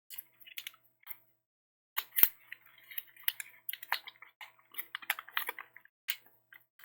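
Sheet of origami paper rustling and crinkling in short, irregular bursts as a paper bird is folded and creased by hand, with one sharp tap about two seconds in.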